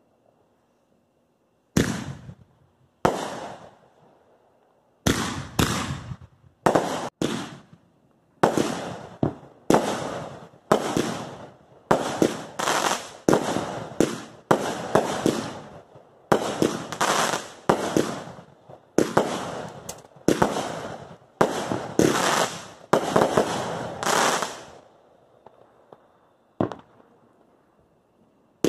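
Consumer aerial fireworks going off: two single bangs, then a quick string of about thirty shots bursting over some twenty seconds, and one last bang near the end.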